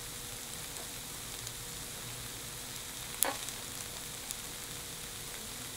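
Sundae bokkeum (Korean blood sausage stir-fried with cabbage) sizzling steadily in a tabletop grill pan, with a single sharp click about three seconds in.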